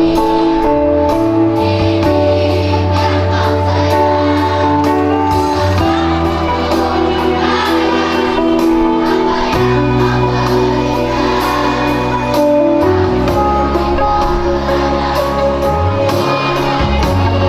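Children's choir singing to a keyboard-style backing track with a bass line and a steady beat.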